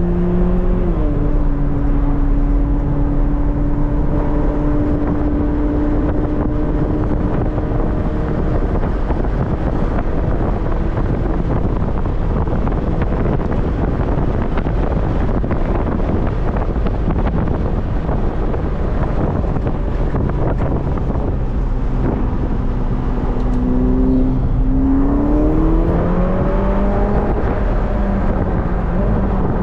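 Ferrari SF90 Spider's twin-turbo V8 heard from inside the cockpit on track: a steady engine note for the first several seconds, then mostly a steady rush of road noise with the engine faint, then the engine note rising as the car accelerates about 25 seconds in.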